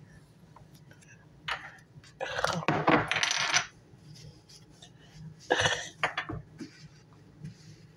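Dishes and utensils clinking and clattering as they are handled, in a few separate bursts, the longest about two to three and a half seconds in.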